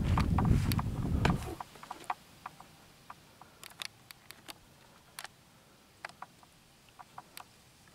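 A loud, uneven low rumble that cuts off suddenly about a second and a half in, followed by faint scattered clicks and ticks over a quiet background.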